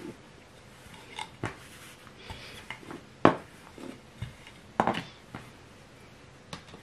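Hands and a plastic rolling pin working bread dough flat on a wooden board: scattered soft knocks and taps, the loudest about three and five seconds in.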